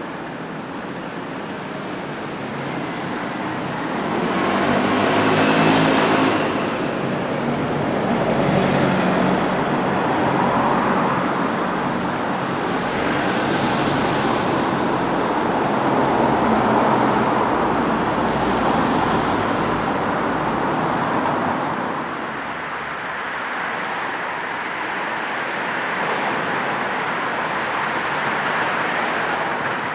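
City road traffic: a steady hum of tyres and engines, with vehicles passing one after another in swells that rise and fade, the loudest about six seconds in.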